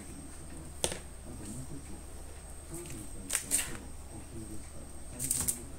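A cat's claws raking a corrugated cardboard scratcher in short rasps, about three and a half seconds in and again near the end, with a single sharp click about a second in.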